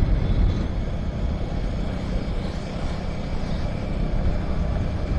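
Motorcycle riding steadily along a road: a steady rush of engine, tyre and wind noise.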